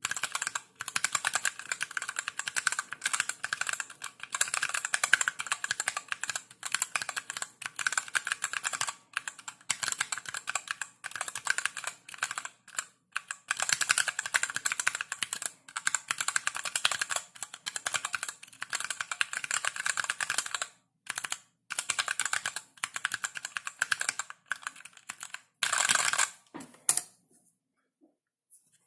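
Typing on a Niu Mini 40% mechanical keyboard with Zealio V1 67 g tactile switches, DSA keycaps and an aluminium bottom: a rapid, steady clatter of keystrokes with a few short pauses, stopping about a second and a half before the end.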